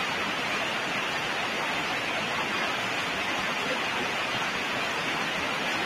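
Steady, even hiss with no change or break, strongest in the low and middle range.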